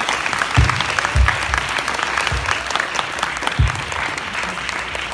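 Audience and graduates applauding, with a few low thumps in among the clapping.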